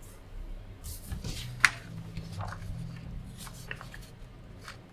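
A sheet of paper being picked up and handled: a few short rustles and crinkles, with one sharper crackle about a second and a half in.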